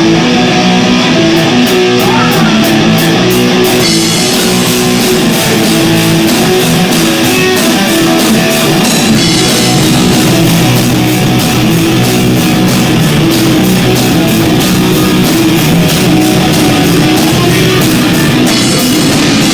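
A rock band playing live on electric guitar, bass and drum kit, recorded on an overdriven phone microphone, so the sound is distorted. The drums fill out about four seconds in, with a steady beat on the cymbals.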